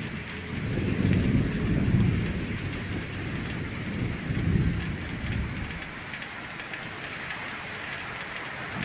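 Rainstorm: a steady hiss of rain with low rumbling swells that rise about a second in and again around four to five seconds.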